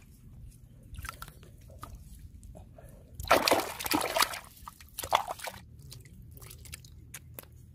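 Muddy water sloshing and splashing as a bare foot stamps down into a small water-filled hole, then hands churn in it. The loudest splashing comes about three to four seconds in, with a shorter burst around five seconds.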